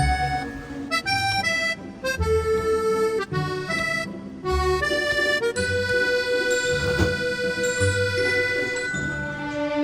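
Background music: a melody of held notes that change every second or so, over a low bass line.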